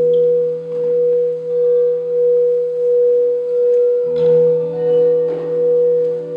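Crystal singing bowls ringing: one strong sustained tone over lower held bowl tones, swelling and fading in a slow wobble a little faster than once a second.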